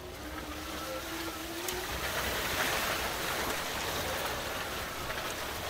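Electric (Tesla-motor) Land Rover Defender driving over a rough woodland track, heard from inside the cab: a steady rush of tyre, track and wind noise with no engine sound, swelling a little about two seconds in.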